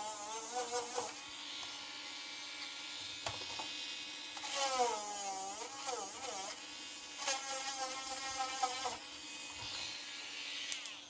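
Small electric hand drill (mini rotary tool) enlarging holes in a circuit board. It whines in three spells, near the start, about four and a half seconds in and about seven seconds in, its pitch sagging and recovering as the bit cuts.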